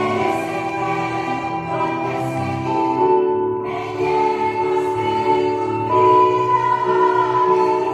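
A large choir singing long, held notes in chords, with the singers' 's' sounds hissing together several times.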